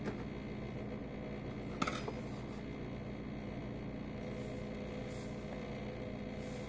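Steady mechanical hum, with a single sharp clink about two seconds in as a measuring cup knocks against a stainless steel pot.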